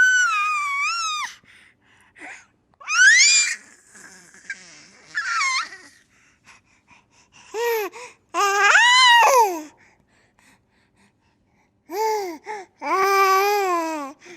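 A baby laughing, squealing and babbling in separate bursts with short pauses between them, starting with a long, very high squeal.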